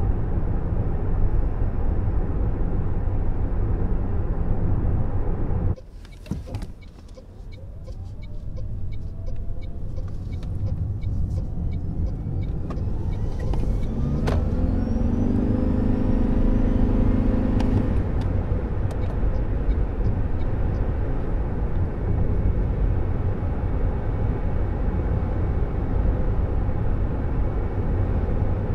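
Toyota Prius plug-in hybrid being driven, heard from inside the cabin: steady tyre and road rumble. About six seconds in the noise drops suddenly to a quieter stretch with a run of light ticks and a faint rising whine. The rumble then builds back up as the car gathers speed, with a steady tone of several pitches sounding for about four seconds in the middle.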